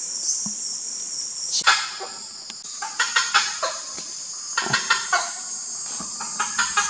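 A bird calling in three runs of short, rapid notes, over a steady high-pitched insect chorus.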